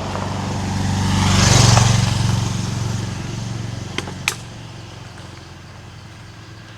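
A motor vehicle passing on the road: its engine hum and tyre hiss swell to a peak under two seconds in, then fade away. Two sharp clicks follow about four seconds in.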